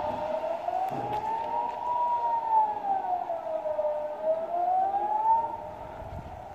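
Civil-defence siren sounding the Swiss general-alarm test signal: a steady rising and falling wail, each swell about four seconds long, fading away near the end.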